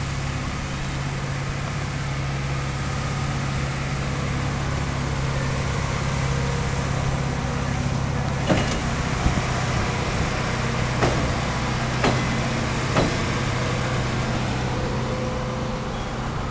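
Diesel engine of a road-rail shunting vehicle running steadily as it moves rolling stock along the track. A few sharp clanks come in the second half.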